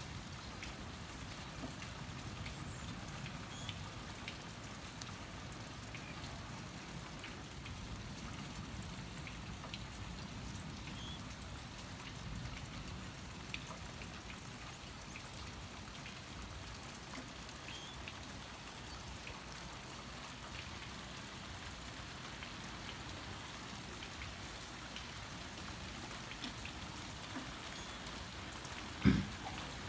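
Steady rain falling, with scattered single drops ticking. A single sharp knock comes near the end.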